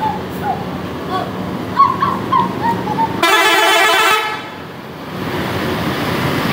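A loud horn blast about a second long, starting and stopping suddenly, over a steady background noise.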